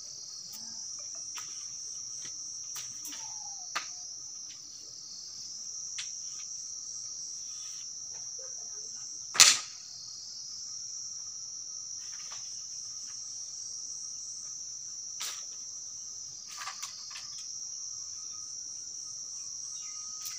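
Insects chirring steadily in a high, unbroken drone, with scattered sharp knocks from hand hoes striking the soil; the loudest knock comes about halfway through.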